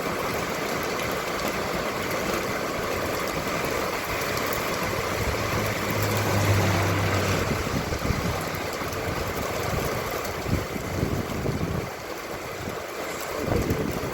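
Steady rain hiss, with a vehicle's low engine hum swelling briefly about halfway through.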